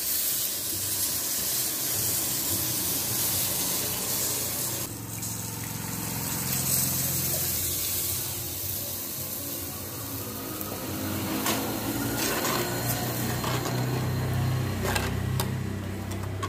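Tamarind water squeezed by hand and poured into a hot clay pot of fried onion-tomato masala, a steady watery hiss as the liquid hits the pan. A metal spoon stirs and clicks against the pot near the end.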